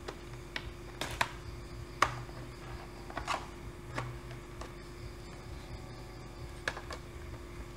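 Irregular light clicks and taps of a laptop's plastic casing being handled and test-fitted over a newly installed SSD, the loudest about two seconds in, over a steady low hum.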